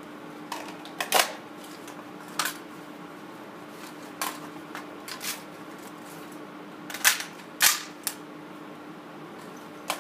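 Sharp clicks and clacks of a suppressed rifle and gear being handled, about ten in all and irregularly spaced, the loudest about a second in and again about seven and a half seconds in, over a steady low hum.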